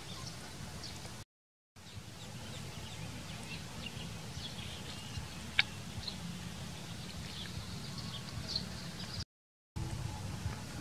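A baby chick peeping in many short, high chirps over a steady low outdoor rumble, with one sharp click about halfway through. The sound cuts out completely twice for a split second.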